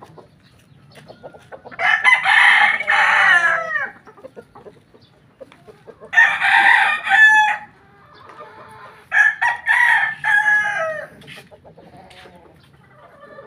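Gamecocks crowing three times, each crow lasting about a second and a half to two seconds and dropping in pitch at its end.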